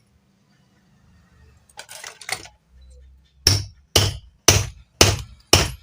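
Five evenly spaced hammer taps about half a second apart, driving a part into the housing of a Kirloskar Tullu half-horsepower pump motor through a piece of wood. A few quieter knocks and clinks of handling come before them.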